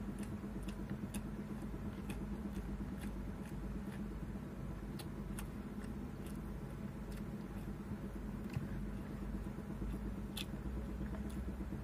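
A steady low hum runs throughout, under scattered small clicks and smacks of someone eating rice by hand and chewing.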